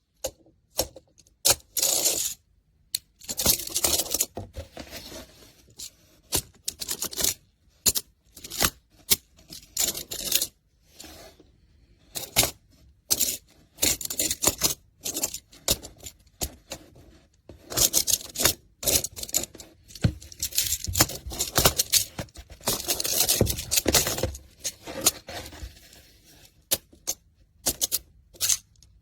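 Plastic magnetic building pieces clattering and clicking in quick irregular bursts as they are handled, rummaged through and snapped together, with brief pauses between.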